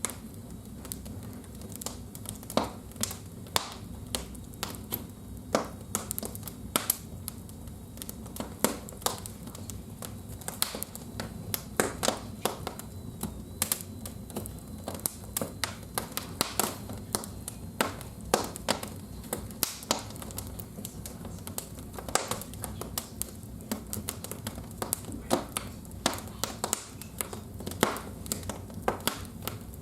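Wood fire crackling in a fireplace: irregular sharp snaps and pops, several a second, over a steady low rumble.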